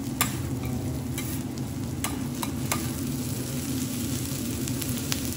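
Fried rice sizzling on a hot teppanyaki griddle as a metal spatula presses and scrapes it across the plate, with a few sharp clicks of the spatula striking the steel.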